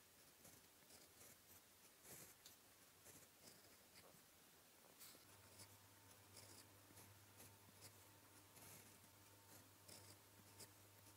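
Fountain pen nib scratching across paper in faint, short, irregular strokes, about one or two a second, as letters are handwritten. A faint steady low hum comes in about five seconds in.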